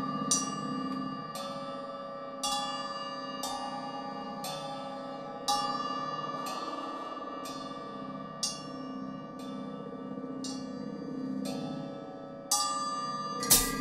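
Improvised music of struck metal percussion with a bell-like ring: one stroke about every second, each leaving a long-held tone, over a low steady drone. The loudest stroke comes near the end.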